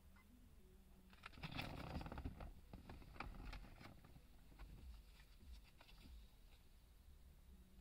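Faint rustling and light clicking of tarot cards being handled and turned over, densest in the first half, then trailing off.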